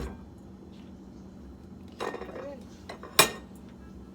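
A spoon knocking and scraping against a bowl as cooked rice is spooned in, with one sharp clink a little after three seconds.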